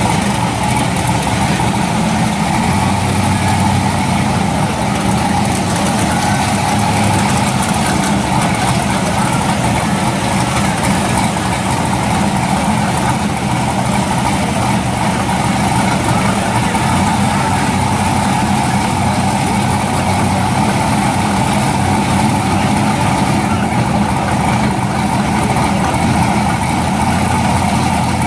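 Drag-car engines of a 1969 Chevelle and the car beside it idling steadily.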